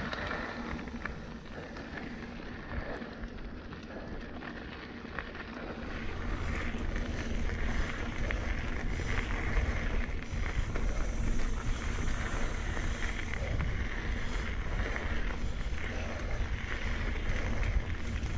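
Wind buffeting the camera microphone over tyre and trail noise from a mountain bike being ridden on dirt singletrack; the low wind rumble gets louder about six seconds in.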